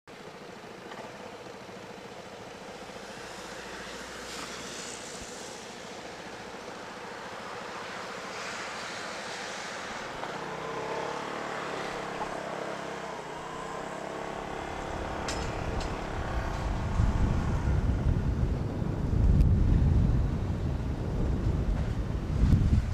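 Motor scooter being ridden, heard from a helmet-mounted camera: a steady hum with traffic noise, and a pitched engine note about halfway through. After that, low wind rumble on the microphone grows louder toward the end.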